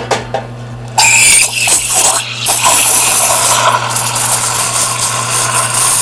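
Steam wand of a Valexia Duetto II dual-boiler espresso machine opened about a second in, then hissing loudly and steadily as milk steaming begins.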